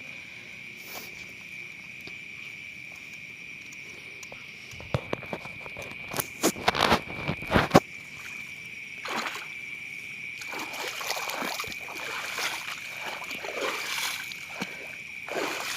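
Water sloshing and splashing in loud bursts from about five to eight seconds in, then softer swishing and sloshing, as of someone wading through shallow water. A steady high-pitched insect chorus runs underneath.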